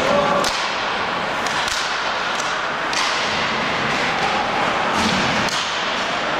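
Ice hockey play: sharp clacks of sticks striking the puck and each other, about six scattered over a few seconds, over a steady rink hiss.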